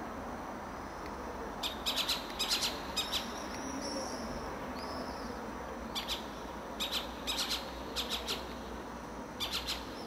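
An owl gives short, sharp high calls in quick groups of two to four, repeated every second or so, with a thin drawn-out whistle about four seconds in. The calls sit over steady background noise.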